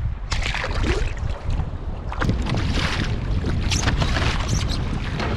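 Wind buffeting the microphone on a fishing kayak at sea, with a run of irregular splashes and knocks starting just after the beginning, as a sea bass is let go over the side and the angler handles gear on the kayak.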